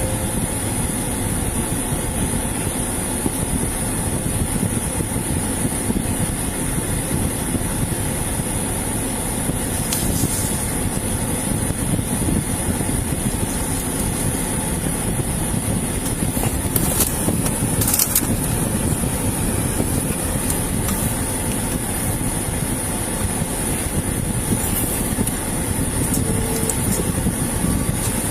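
Steady rumble and hiss of a vehicle running at idle, with a few faint clicks.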